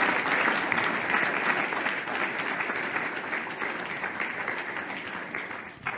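Audience applauding: dense clapping, loudest at the start, slowly thinning and dying down.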